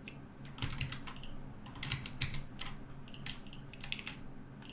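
Computer keyboard keys being pressed: a dozen or so sharp clicks in irregular clusters, over a faint steady low hum.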